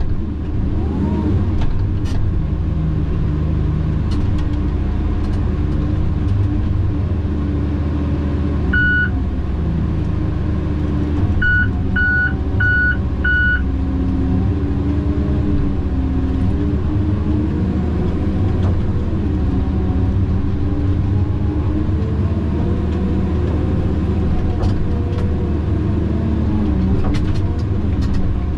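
Tigercat 610E skidder's diesel engine running steadily under work, its pitch rising and falling with the throttle. Partway through, the machine's electronic warning beeper sounds once and then four times in quick succession.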